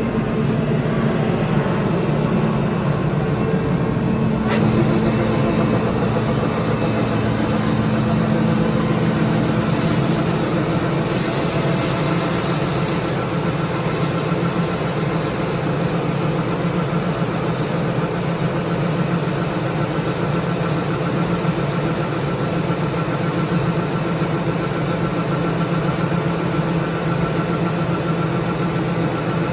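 Combine harvester running steadily while picking corn with an Olimac Drago corn head: an even engine hum over a broad hiss, with a brighter high hiss joining about four and a half seconds in.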